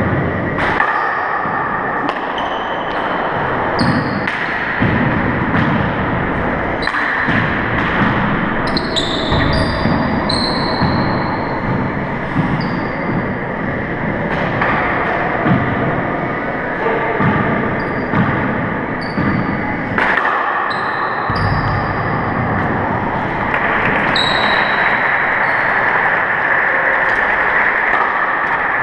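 Handball rally in an echoing four-wall court: the rubber ball smacks off the walls and floor again and again, with short high squeaks from sneakers on the hardwood floor between the hits.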